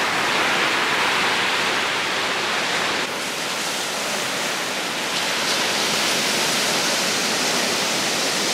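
Steady rushing noise of ocean surf, a little quieter after about three seconds.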